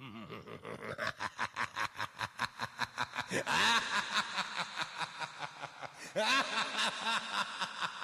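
Rapid laughter that starts suddenly, pulsing about six times a second, with louder surges about three and a half and six seconds in.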